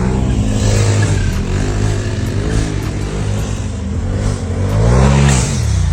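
Polaris RZR side-by-side's engine revving up and down several times as it drives, the pitch climbing and falling in repeated swells, the biggest about five seconds in.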